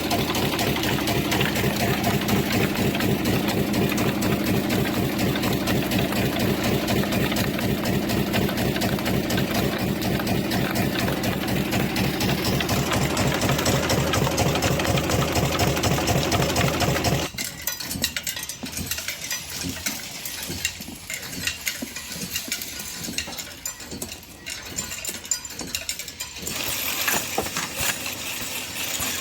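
Ammunition-production machinery running with a fast, even mechanical clatter. About 17 seconds in it cuts off suddenly and is followed by quieter, scattered clicks and metallic clinks.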